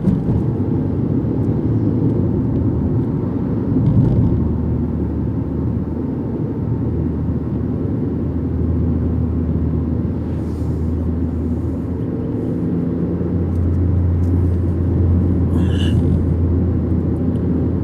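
Car driving along a road: a steady low rumble of engine and tyre noise, its hum growing a little stronger in the second half.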